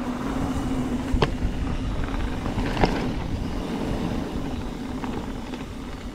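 Trek Slash 8 mountain bike rolling down dry dirt singletrack: steady tyre and trail rumble with wind on the microphone, and two sharp knocks, about a second in and near three seconds, as the bike hits bumps in the trail.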